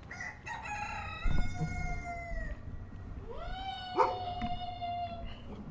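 Rooster crowing twice, two long calls of about two seconds each, each held level and then dropping slightly at the end. Behind them is a low rumble, with a sharp knock at the start of the second crow.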